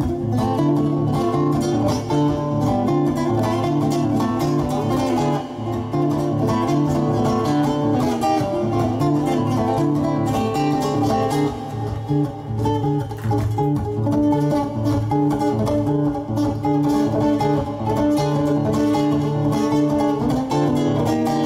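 Acoustic nylon-string classical guitar played solo, a steady repeating picked pattern of bass notes and higher chord tones: the instrumental introduction to a song.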